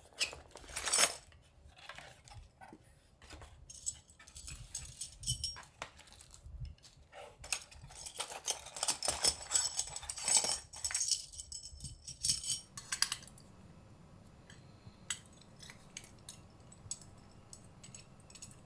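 Handling noise: a run of clinks, clicks and rustles of small hard objects being handled, busiest about halfway through, then only a few scattered clicks.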